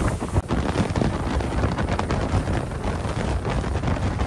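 Wind buffeting the microphone, a loud uneven low rumble with crackling gusts.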